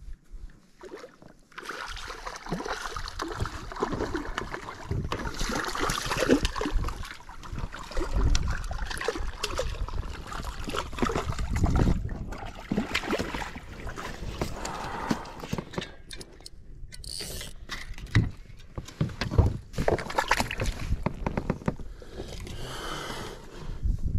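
Water splashing and sloshing as a hooked trout thrashes at the surface beside the boat and is landed, with knocks and rustles of the rod, net and fish being handled.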